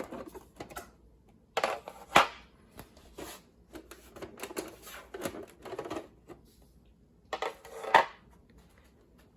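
Hard plastic clicking and clattering from the typewriters' covers being handled, with two sharp knocks about two seconds in and again about eight seconds in.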